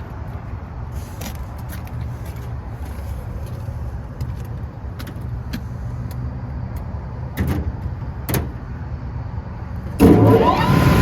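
A steady low rumble with a couple of sharp clicks, then near the end a sudden loud start-up. This is a Lennox rooftop unit's newly replaced blower motor kicking on and spinning up with a rising whine.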